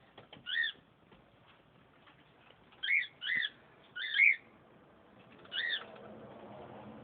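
Pet lovebird giving five short, sharp chirps, each a quick rise and fall in pitch: one about half a second in, three close together around three to four seconds in, and one near the end.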